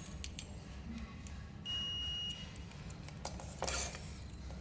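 A multimeter's continuity buzzer beeps once with a steady high tone for about two-thirds of a second, as the probes test a refrigerator compressor start relay. The beep shows the relay is conducting. A short rustle of handling follows near the end.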